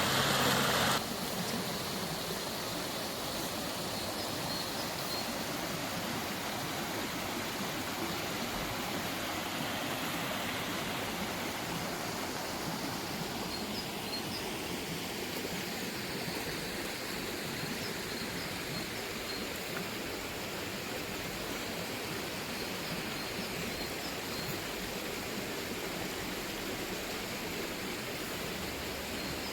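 Steady rushing of running water, with a louder sound cutting off about a second in. A few faint high chirps sit over the water now and then.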